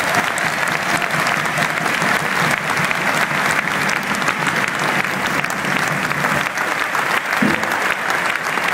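Large football stadium crowd applauding steadily, a dense patter of many hands clapping.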